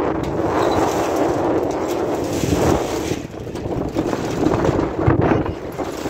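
Strong dust-storm wind blowing across the microphone in gusts, with a brief lull about three seconds in.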